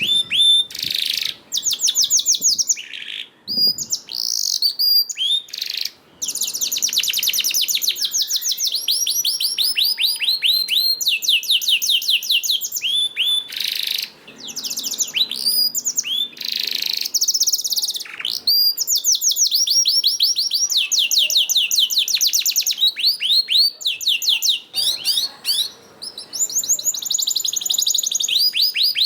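Domestic canary singing a long song of fast trills, each a rapid run of repeated down-slurred notes, with a few brief pauses between phrases.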